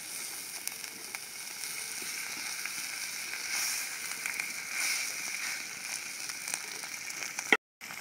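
Murrel fish pieces sizzling on a salt-covered iron tawa over a wood fire: a steady hiss full of fine crackles. Near the end a single sharp click comes just before the sound cuts out briefly.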